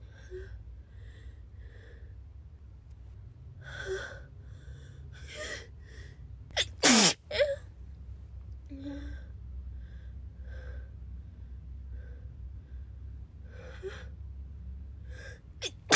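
A person with a cold sneezing hard about seven seconds in, with short breathy sounds before and after; another sneeze starts right at the end.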